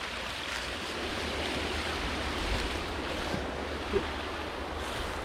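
Steady rush of a small waterfall and stream, with low wind rumble on the microphone and a single light knock about four seconds in.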